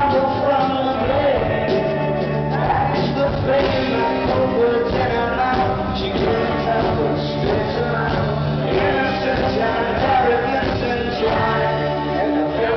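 Live rock band with guitars, drums and an orchestral string section playing a song, with a singer.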